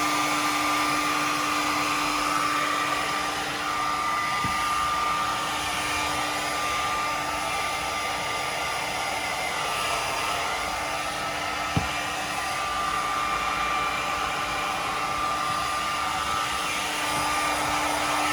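Handheld hot-air blower running steadily, a motor whine over a rushing hiss of air, heating the edge of a vinyl tint film so that it shrinks onto the headlight.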